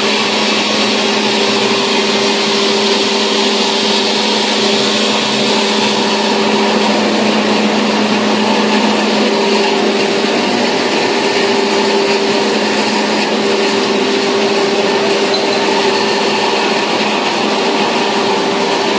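KFQ-model paperboard slitter-rewinder running steadily: a continuous loud machine noise with a low hum and a higher tone that fades in and out.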